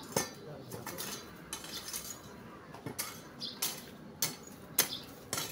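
Irregular series of sharp metallic clinks and knocks, roughly one every half second.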